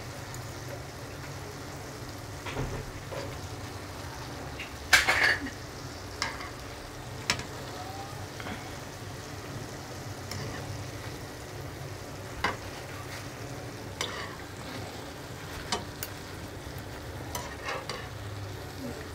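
Doughnuts frying in shallow oil in a nonstick frying pan, a gentle steady sizzle. A metal skewer taps and scrapes against the pan now and then as the doughnuts are turned and threaded onto it, the loudest tap about five seconds in.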